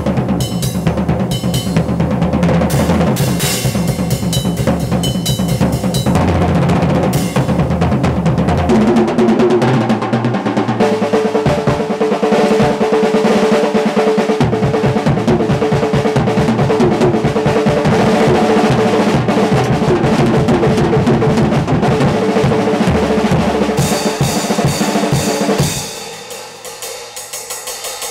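Acoustic drum kit played in a fast solo with sticks: bass drum and cymbals at first, then rapid rolls around the toms from about nine seconds in. The playing drops to quieter strokes for the last couple of seconds.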